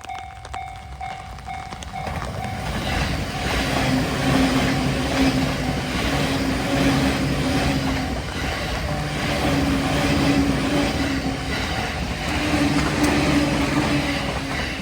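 Japanese level-crossing warning bell ringing in a steady repeating "kan-kan", then from about two seconds in a train passes over the crossing, wheels clattering rhythmically over the rail joints above a low steady hum.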